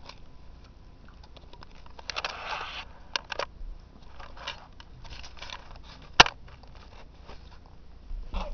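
Rustling and clicking handling noise. There is a short burst of rustle about two seconds in, a couple of small clicks just after three seconds, and one sharp click a little after six seconds, the loudest sound.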